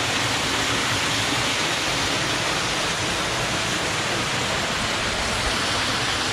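Storm runoff tumbling straight down a rock chute that is normally dry, a steady rush of falling water.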